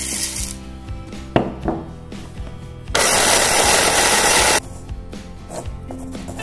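Rolled oats pour into the plastic bowl of an electric mini chopper at the start; about three seconds in the chopper motor runs for about a second and a half, coarsely chopping the oats, then stops sharply. Background music plays throughout.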